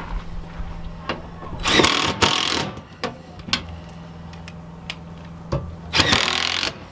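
Handheld power driver running screws into a stovepipe wall support bracket in short bursts: two close together about two seconds in and one more near the end, with small clicks of handling between.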